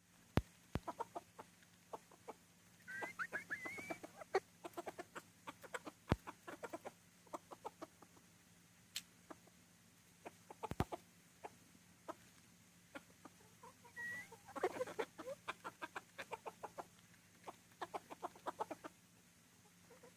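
A rooster clucking in short, repeated notes. Twice, about 3 and 15 seconds in, it breaks into a run of rapid clucks that opens with a high, wavering squawk. A few sharp clicks and a faint steady hum sit underneath.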